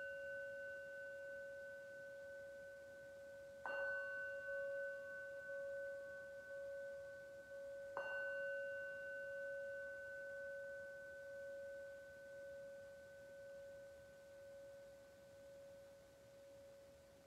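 Small metal singing bowl struck twice with a mallet, about four seconds apart, and already ringing at the start. Each strike rings on in a long, slowly fading tone. The bowl marks the end of the final relaxation.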